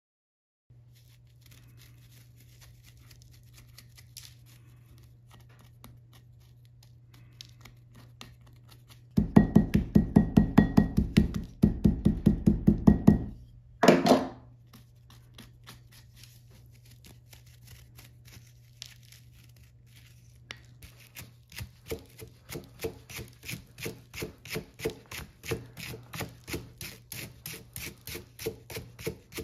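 Ball peen hammer striking a paintbrush's paint-hardened bristles on a steel anvil to crack the dried paint out: a fast run of loud strikes, about four a second, with a ringing tone, then one loud knock. Later come lighter, steady hammer taps on the bristles, about three a second.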